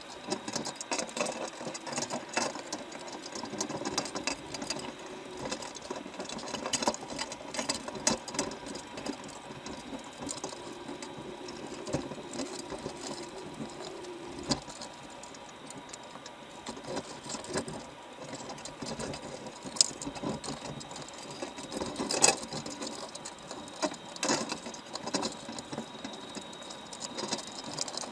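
Machinery running with steady rapid clicking and scattered sharp knocks, the loudest about twenty-two seconds in.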